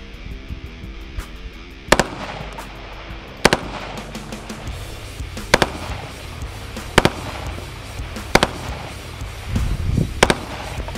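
Ares Shrike 5.56 belt-fed AR-15 firing 5.56 rounds from the shoulder, six sharp reports spread about a second and a half apart.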